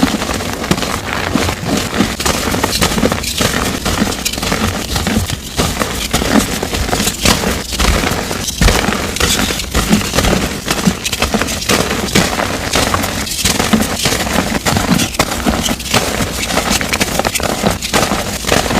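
Dyed gym chalk blocks being crushed and crumbled, a dense, continuous run of crunching and crackling.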